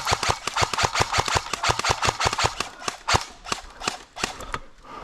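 Airsoft guns firing a rapid string of sharp shots, about six to eight a second, stopping shortly before the end.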